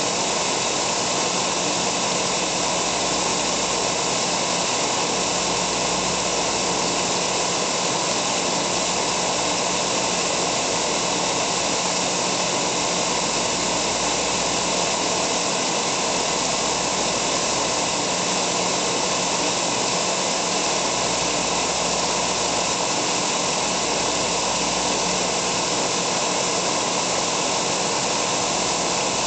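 Giddings & Lewis horizontal boring mill machining a steel wood-chipper disc, with coolant spraying on the cut: a steady, loud hiss over an even low hum, unchanging throughout.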